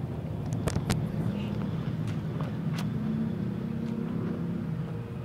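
Close mouth sounds of eating: a few sharp lip-smacking clicks, mostly in the first three seconds, over a steady low background hum.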